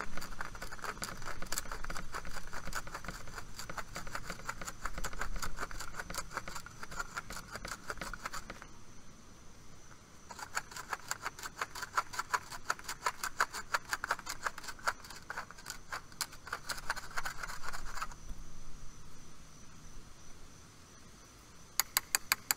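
Hand-held cone tube reamer twisted on the cut end of a copper tube, its blade scraping off the burr with a rapid clicking rasp, in two long bouts with a short pause between and a brief burst near the end. It is deburring the tube end so the flare seat comes out clean.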